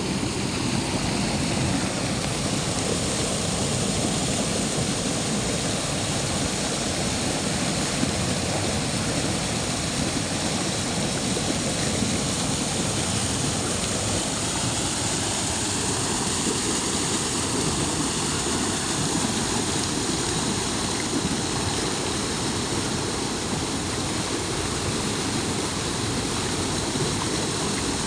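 Turbulent waterfall: a steady, unbroken rush of falling, churning water.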